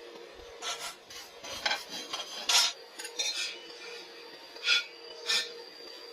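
Steel pieces or tools knocking and scraping against each other in a string of short, sharp clinks and rasps, with the loudest ones near the middle and two more near the end.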